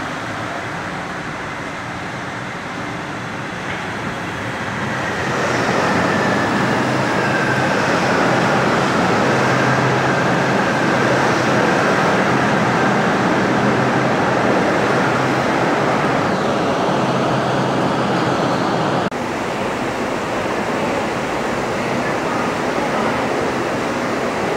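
A rubber-tyred Bombardier Innovia 300 monorail train running along its concrete guideway as it arrives at the station. The rolling noise grows about five seconds in as the train comes close, with a faint whine falling in pitch as it slows. A little past three quarters of the way through, the sound drops suddenly to a steadier, lower noise.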